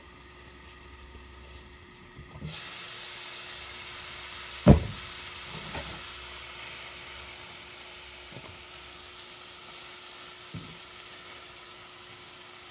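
Browned ground pork sizzling in a frying pan as paper towels are pressed in to soak up the grease. The sizzling starts suddenly a couple of seconds in, with one sharp knock about two seconds later and a few lighter knocks after it.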